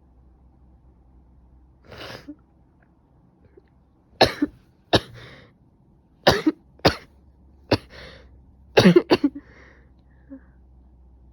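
A person with a cold coughing: a run of short, sharp coughs in small clusters, from about four seconds in until about nine seconds in, the uploader having probably caught a cold.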